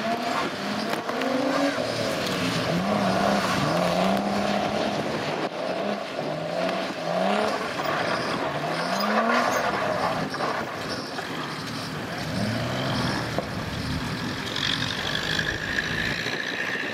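Nissan Skyline's straight-six engine revving hard over and over, its pitch climbing in repeated sweeps as the car drifts, over a hiss of tyres throwing spray off the flooded surface.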